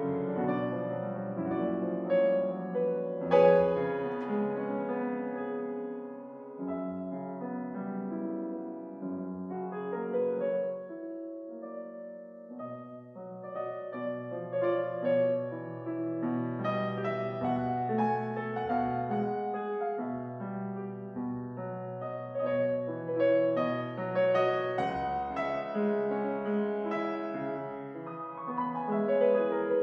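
Soft background piano music, a slow melody over held bass notes.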